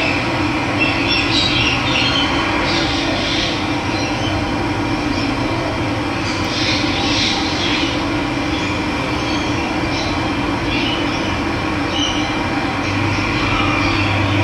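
Running water making a steady rushing sound, with birds chirping in short bursts several times over it.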